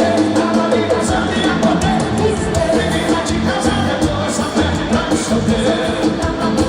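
Live forró band music amplified through a concert sound system, with a steady drum beat.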